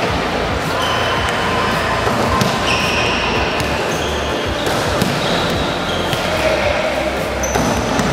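Volleyballs being hit and bouncing on an indoor court floor, with short sneaker squeaks, echoing in a large sports hall.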